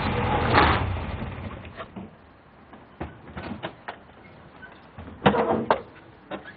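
A car running as it pulls up and stops, its noise fading out about a second and a half in. Then the clicks and clunks of car door latches and doors being opened, the loudest near the end.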